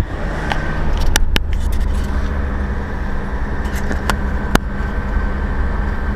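A car driving, its engine and road noise a steady low rumble, with several sharp clicks about a second in and again after four seconds, and a faint high whine from about two seconds in.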